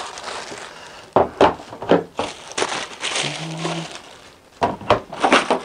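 Clear plastic packaging bag crinkling and rustling as vacuum attachments are pulled out of it, with several sharp knocks of hard plastic parts being set down on a table.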